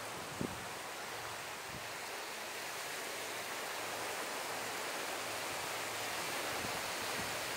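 Steady wash of small waves on the shore, an even hiss without breaks, with a faint knock about half a second in.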